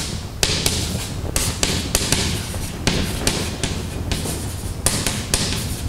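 Chalk tapping and scratching on a blackboard as words are written: a quick, irregular run of sharp taps with short scrapes between them.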